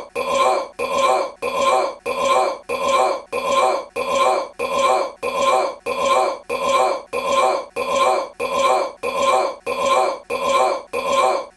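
A man's short belch, repeated over and over at an even pace of a little over two a second. Each repeat has exactly the same shape, like a looped recording.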